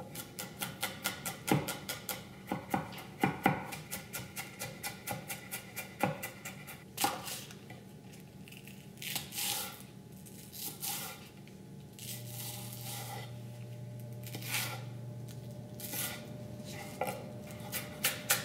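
Kitchen knife mincing garlic, ginger and scallion on a wooden cutting board. A fast run of rapid chopping taps gives way to slower, spaced-out chops in the second half.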